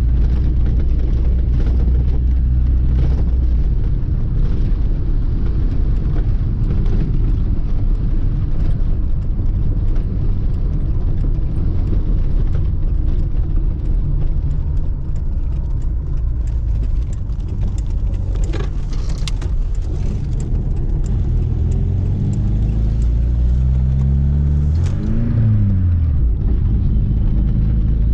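Lada 2106 inline-four petrol engine running as the car is driven, with a steady low rumble. About three-quarters of the way through, the engine note rises and falls once, a single rev up and back down.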